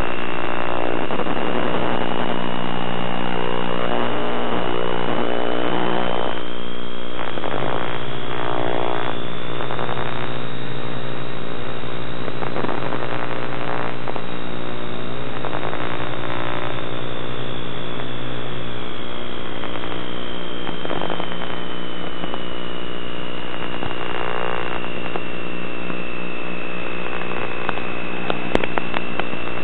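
Steady electrical hum and buzz with a high whistling tone that slowly rises and then falls back. It is the kind of interference carried on an FPV video link's audio channel.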